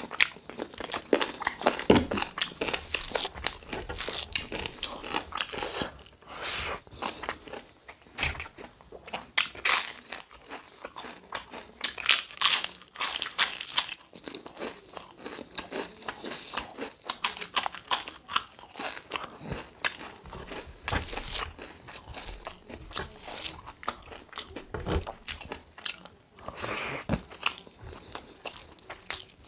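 A person biting and chewing chicken drumsticks with rice, a steady run of irregular sharp crunches and clicks.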